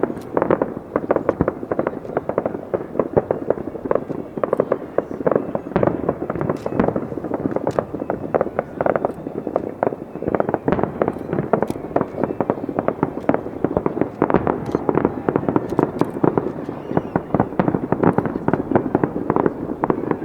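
Fireworks display in a dense barrage: many sharp bangs a second, overlapping into a continuous rattle of explosions.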